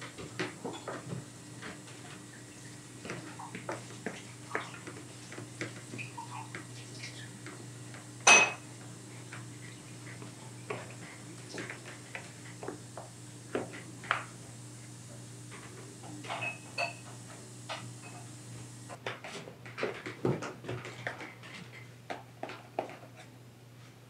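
Knife and ruler working a tray of layered baklava, making scattered light taps, scrapes and clinks as the pastry is cut into diamonds. One sharp ringing clink comes about eight seconds in.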